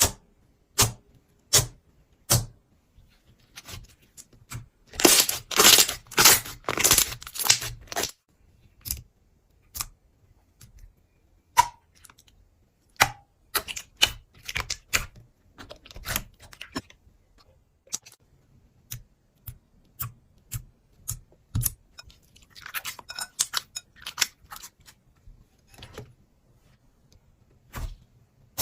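Slime being squeezed and poked by hand, giving a string of sharp sticky clicks and pops. Denser crackling runs about five seconds in for some three seconds, and again a little past twenty seconds.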